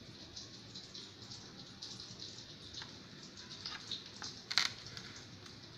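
Faint scraping and light clicks of a knife cutting into a soft sponge cake on a plate, with one sharper click about four and a half seconds in.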